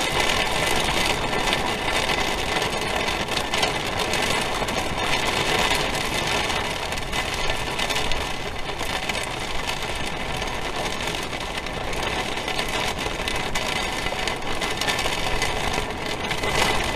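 Heavy rain beating hard and steadily on an RV's roof and shell in a thunderstorm, heard from inside, with wind.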